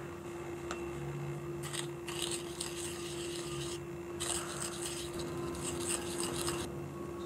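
A plastic spoon scraping and scooping through dry baking powder in a small ceramic bowl, in two bouts of rasping strokes with a short pause between, the second as the powder is tipped into the mixing bowl. A steady low hum runs underneath.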